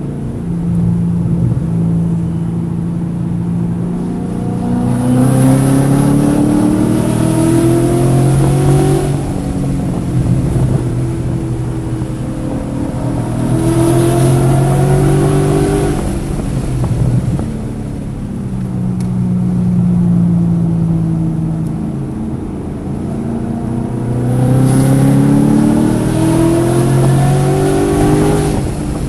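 Car engine under hard acceleration three times, its pitch climbing with each pull and falling back in between, while misfiring on cylinders 1, 3 and 4.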